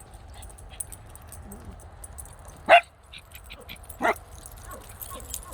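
A dog barking twice, two short sharp barks about a second and a half apart.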